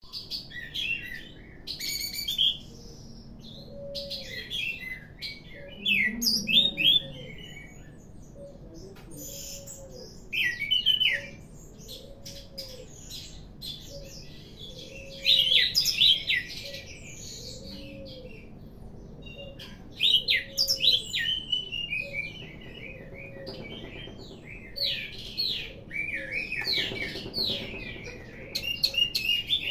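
Orange-headed thrush singing: bursts of quick, varied, high warbling phrases a few seconds apart, with the longest run of song near the end.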